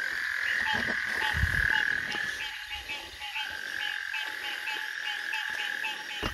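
A chorus of small frogs calling: short calls repeating a few times a second over a steady high trill. A brief low rumble comes about a second in.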